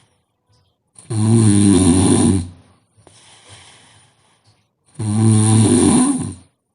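A sleeping person snoring loudly: two long, rasping snores about four seconds apart, with a faint breath out between them.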